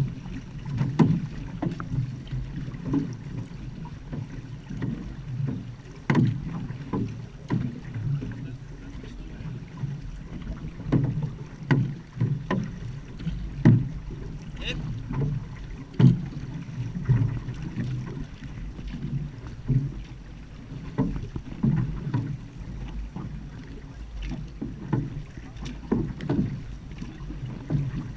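Outrigger canoe (va'a) being paddled: paddle blades dig in and splash, with water sloshing against the hull, at an uneven rhythm of about one stroke a second.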